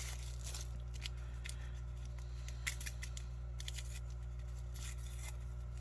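Handling of small salt and pepper packets from a meal ration: a few faint, scattered clicks and rustles over a steady low hum.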